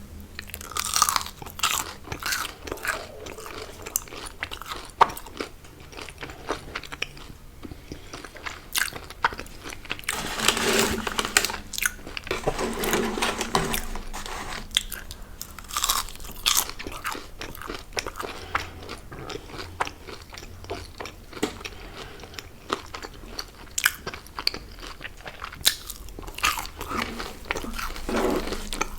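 A person biting into and chewing crunchy fried fast food, with many sharp crackles, loudest in stretches around a third of the way in.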